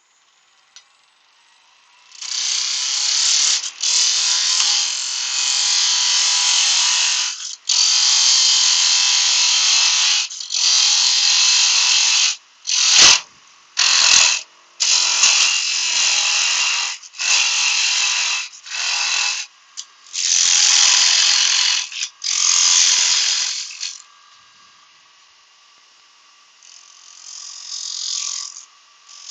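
A turning tool cutting wood on a running lathe, taking a dozen or so rough, rasping passes of a few seconds each with short breaks between, to cut away a wooden block. After the last pass, about four seconds before the end, only the lathe's faint running is left.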